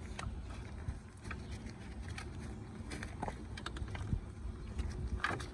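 Scattered light clicks and taps of hands handling wiring and parts around a car's hood latch, over a low steady rumble.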